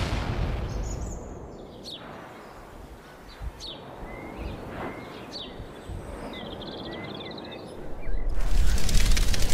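Outdoor woodland ambience with a few short bird chirps and a brief trill. A loud crash fades away at the start, and a loud rattling noise begins about eight seconds in.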